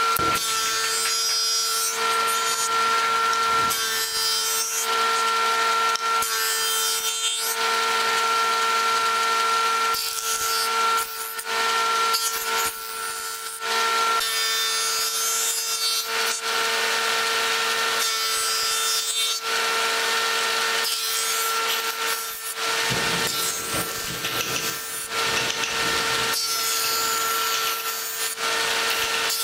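Jointer running with a steady motor whine while thin wooden strips are fed over its spinning cutterhead, each pass a loud planing rasp of a second or two, a dozen or so passes in a row.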